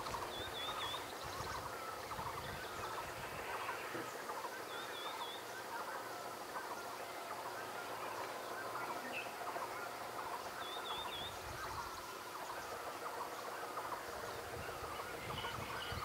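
Outdoor bird chorus: many birds chattering and calling without a break, with a short high trill from one small bird repeating about every five seconds.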